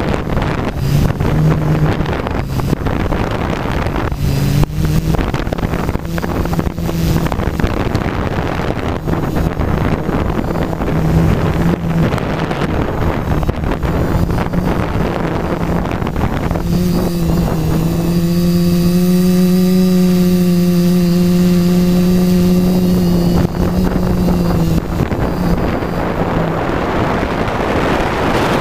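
F450 quadcopter's four brushless motors and 9047 propellers buzzing, heard from the onboard camera. The pitch steps up and down with the throttle and is held steadiest and loudest for several seconds past the middle. Wind rushes on the microphone throughout.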